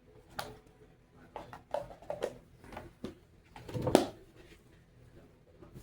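Kitchen handling noises while preparing dressing in a pan: a series of light knocks and taps, with a louder clatter about four seconds in.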